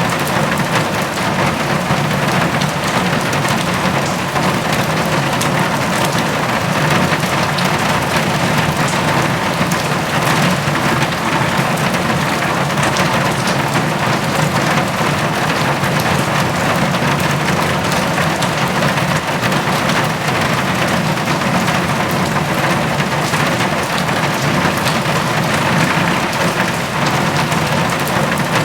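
Steady rain falling hard, with many individual drops pattering across the continuous hiss.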